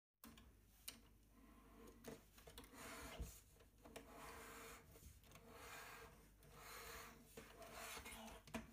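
Faint rubbing and sliding of a plastic LEGO Technic tank model being handled and turned on a tabletop, in soft swells, with a few light clicks of plastic parts.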